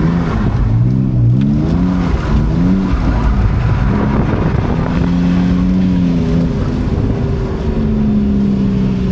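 Car engine revving up and down several times in quick swells for the first few seconds, then holding steadier revs with one brief dip, as a car is slid around in a drift.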